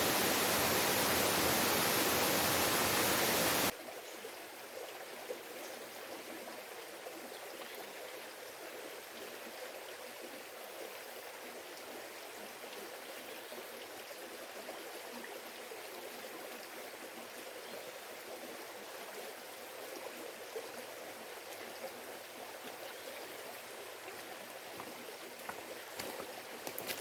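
Rushing water of a waterfall and stream, a steady even roar. About four seconds in it cuts suddenly to a quieter, thinner hiss of flowing water.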